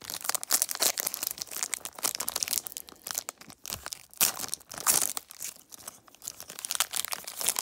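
Foil-wrapped trading card pack being crinkled and torn open by hand: an irregular run of crackles and rips of the wrapper.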